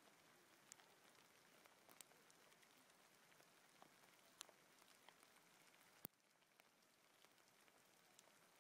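Faint patter of hail falling on the forest floor: a soft steady hiss with scattered sharp ticks of single hailstones striking, and one sharper click about six seconds in, after which the hiss is a little quieter.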